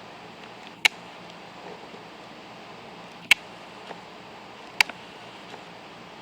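Three sharp clicks as a small plastic N scale model freight car is handled: about a second in, just past three seconds and near five seconds. A steady faint hiss of room noise lies underneath.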